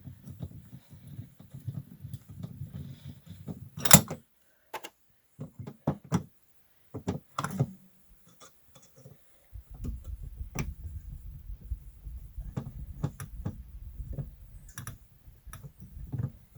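Small clicks and knocks from hands and tools working on an outlet fitting, over a low rumble, with one loud sharp click about four seconds in.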